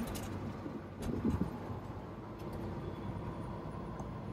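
Peterbilt 389 semi truck cruising on the highway, heard from inside the cab: steady engine hum and road noise.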